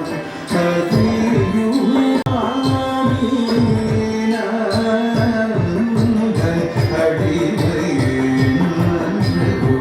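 Carnatic classical music for a Bharatanatyam dance: a sung melody with held notes over a steady, rhythmic hand-drum beat.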